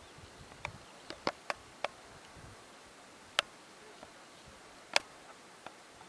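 Scattered sharp clicks, about eight in all at irregular intervals over a faint steady hiss. Several come close together in the first two seconds, with the loudest single clicks about three and a half and five seconds in.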